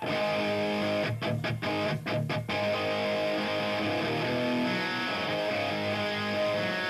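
Electric guitar playing a chord riff, opening a rock song. There are several quick choppy stops between about one and two and a half seconds in, then the chords ring on.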